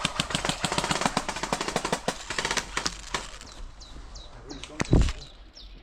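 Airsoft guns firing in rapid full-auto bursts, a fast run of sharp cracks for about three seconds, then a single loud thump near the end.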